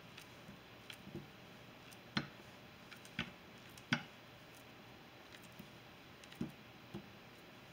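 Knife slicing a banana held in the hand, with faint, irregular soft clicks and taps as the slices are cut and drop onto the cookies in a glass dish; the loudest come about two, three and four seconds in.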